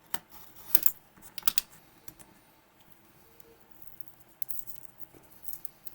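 Adhesive tape being peeled and picked off a small key in short, irregular crackly tugs, mixed with light clicks of handling.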